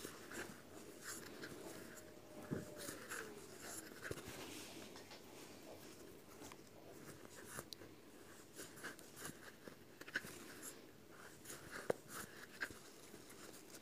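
Faint scratchy rustling and light clicks of a crochet hook and yarn being worked through stitches, close to the microphone.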